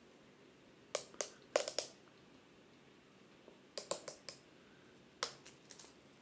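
Clear protective plastic film being peeled off the back of an audio interface, crackling in three quick clusters: about a second in, around four seconds and just past five seconds.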